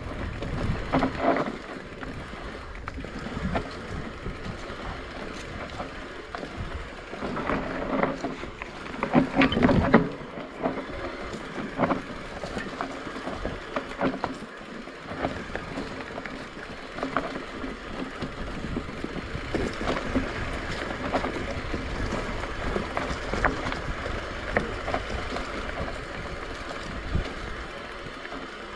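Electric mountain bike (Specialized Turbo Levo) rolling along a dry dirt forest trail: tyres running over soil, leaves and roots, with the bike's frame and chain rattling and knocking over bumps, loudest around eight to ten seconds in.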